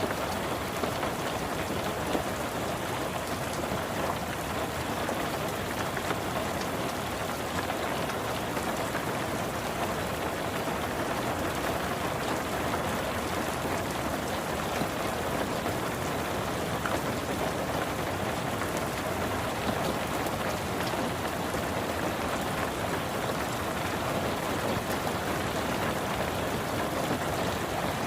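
Steady rain pattering on a car's roof and windows, heard from inside the car as an even, unbroken hiss with scattered small drop ticks.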